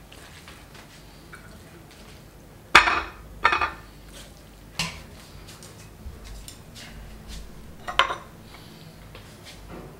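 Kitchen clatter: a stainless mesh strainer knocking against a ceramic plate while soba noodles are tipped out, with two loud knocks close together about three seconds in and a lighter one about two seconds later. Another sharp clink about eight seconds in as a plate is handled on the granite counter.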